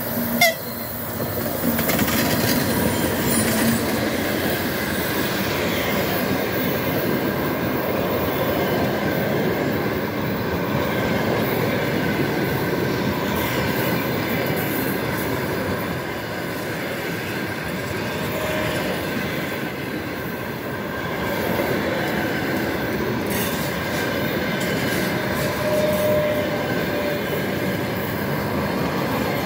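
TEP70BS diesel passenger locomotive passing close by, then a long train of passenger coaches rolling past: a steady rumble of wheels on rail with clicks over the rail joints and a faint, steady wheel squeal. A brief loud hit sounds just after the start.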